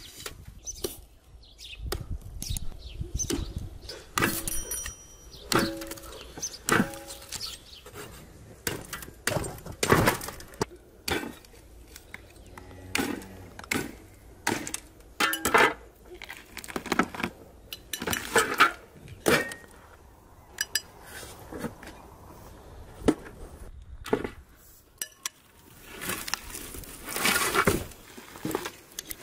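Dishes and utensils clinking and knocking at irregular intervals, a few strikes ringing briefly.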